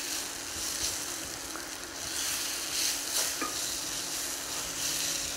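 Crushed boiled potatoes sizzling in hot oil with a garlic and paprika sofrito as a spatula stirs them around a stainless steel pot. The sizzle swells and fades each time the potatoes are turned.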